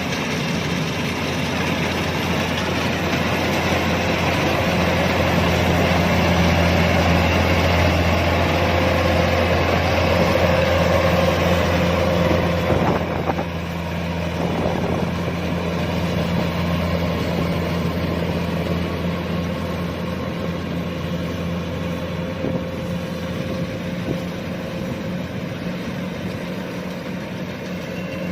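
Kubota DC-105X rice combine harvester running steadily, its diesel engine droning under the noise of the machinery, with a slight drop in loudness about halfway through.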